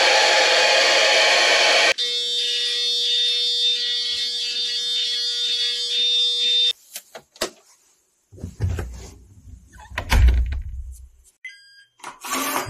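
Hand-held hair dryer blowing, switched off about 2 s in, followed by a steady buzzing tone for a few seconds. Near the end, a few short electronic beeps from a digital door lock as its button is pressed.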